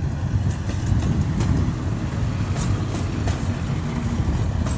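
A TEP70 diesel locomotive running light past the listener, its V16 diesel engine giving a steady low rumble, with a few sharp clicks from the wheels on the rails.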